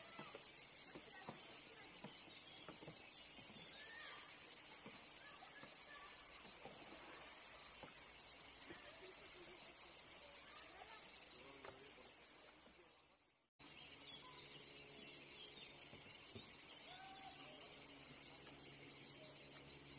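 Steady, dense high-pitched shrilling of cicadas in riverside trees, with faint scattered bird chirps. It fades out and cuts back in about two thirds of the way through.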